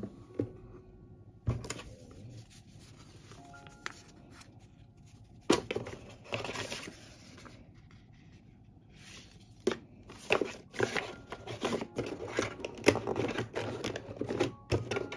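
Laptop packaging being handled: the white protective wrap and paper inserts rustling and crinkling, with sharp clicks and knocks of the cardboard box and its inserts. Bursts of crinkling come about five seconds in and again, denser, through the second half.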